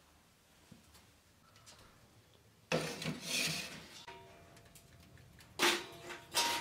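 Metal scraping from a cast-iron wood-burning stove's oven: the oven door is pulled open with a scrape lasting over a second, then a metal tray is slid out across the oven floor with a second, shorter scrape near the end. Quiet background music comes in underneath.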